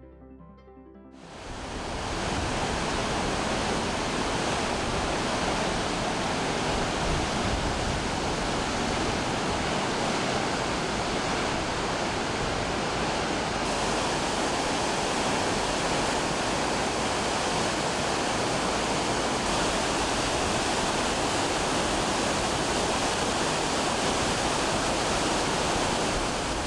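Waterfall: a steady, even rush of falling water that fades in about a second in and fades out at the end.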